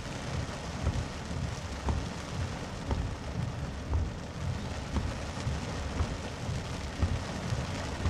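Heavy rain pelting a car's windshield and roof, heard from inside the car, with a low uneven rumble. Faint knocks come about once a second as the windshield wipers sweep.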